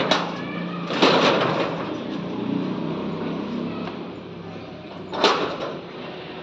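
Steel rolling shutter of a shop being handled at its base: a metallic rattle about a second in and a sharp clank about five seconds in.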